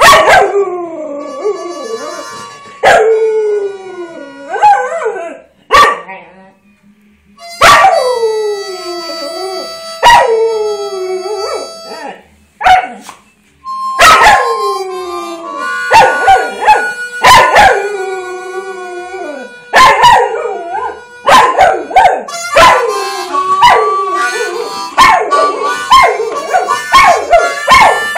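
Spanish water dog howling along with a harmonica: long cries that start high and slide down in pitch, over steady held harmonica notes. In the second half the howls come shorter and quicker, one after another.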